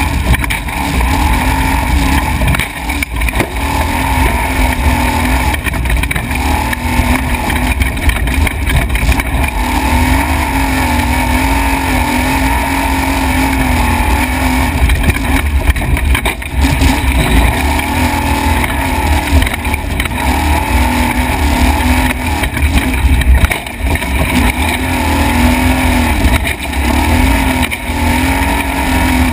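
A desert race truck's engine running hard at speed, heard onboard, its pitch repeatedly rising and falling with the throttle. Under it sits a heavy, constant low rumble.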